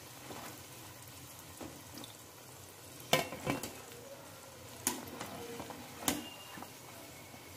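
Karanjis deep-frying in refined oil with a low, steady sizzle. Four sharp clicks, about three, three and a half, five and six seconds in, come from a wire spider skimmer knocking against the pan as the fried pastries are lifted out.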